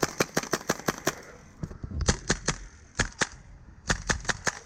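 Airsoft guns firing in quick strings of sharp shots: a fast run of about eight shots at the start, then several shorter volleys.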